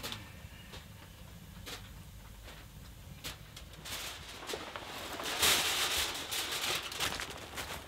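A few light clicks, then rustling that grows louder about four seconds in and is loudest around the sixth second: a cotton tarp hung over a doorway being pushed aside, with footsteps as someone walks out through it.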